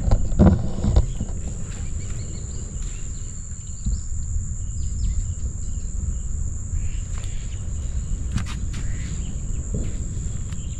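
Steady high-pitched drone of insects, crickets or cicadas, with a few short chirps scattered through it, over a constant low rumbling noise. A few louder knocks come in the first second.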